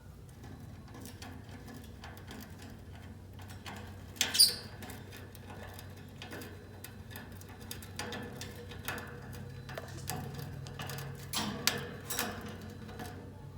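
Lovebirds scratching, rustling and gnawing at nesting material, an irregular run of small clicks and scrapes, with one short shrill chirp about four seconds in.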